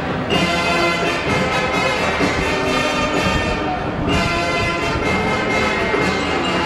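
Marching band playing: brass carrying sustained chords over drums, with the full band swelling louder about a third of a second in and again about four seconds in.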